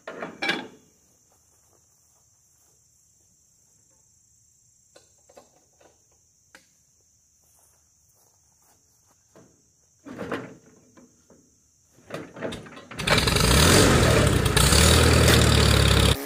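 Cold hand-crank start of a 1947 Farmall C's four-cylinder engine: a crank pull near the start, more cranking attempts around ten and twelve seconds in, then the engine catches about thirteen seconds in and runs loudly.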